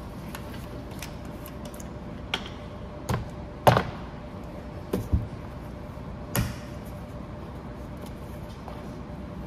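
Handling noise of a plastic gallon jug of metal-prep acid: about six scattered clicks and knocks as gloved hands grip it and take off its screw cap, the loudest a little under four seconds in. A faint steady hum runs underneath.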